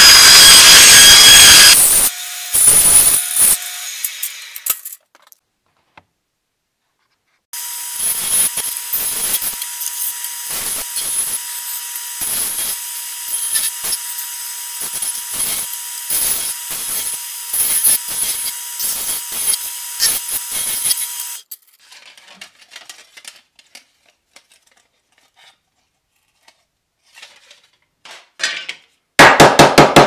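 A bandsaw cuts through a metal license plate, loud for about two seconds at the start. Then a 4-inch belt / 6-inch disc sander grinds the edges of stacked license plates for about fourteen seconds, with a thin steady tone under the grinding. Near the end a hammer starts tapping rapidly on a metal license plate.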